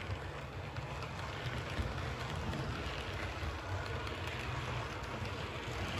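Heljan Class 25 model diesel locomotive and its coaches rolling past on model railway track: a steady rattling hiss of small wheels on rail with a low rumble underneath.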